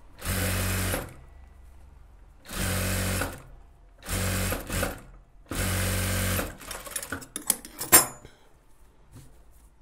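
Industrial lockstitch sewing machine running in four short bursts of about a second each, stitching lace piping onto a gathered puff sleeve. After the bursts come scattered clicks and rustling as the fabric is handled, with one sharp loud click near the end.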